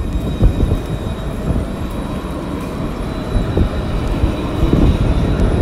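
A tram approaching on street track: a low rumble with a steady high whine, growing louder toward the end.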